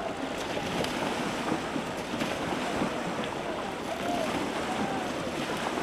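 Steady rushing noise of wind buffeting the microphone, with a few faint short calls rising and falling in pitch in the background.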